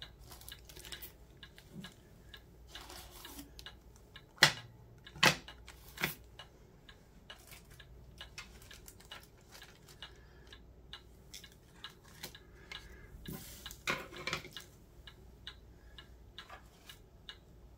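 3D-printed trays and other small unboxed items being handled and set down on a table: scattered light clicks and taps, with three sharper knocks about four to six seconds in and a short run of clatter a little past the middle.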